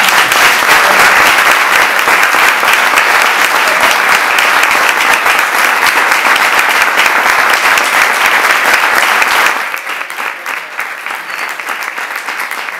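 Audience applauding, a dense steady clapping that drops to a quieter level about three-quarters of the way through.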